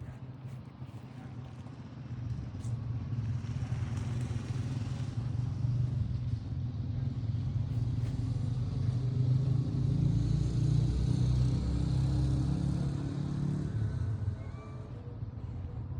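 A low vehicle engine rumble that grows louder over about ten seconds and drops away near the end, as a vehicle passes.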